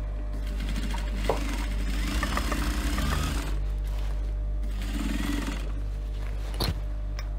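Sewing machine stitching through layers of fabric, with a run of rapid needle strokes about two seconds in and a shorter run near the end, over a steady low hum. There are a couple of sharp clicks.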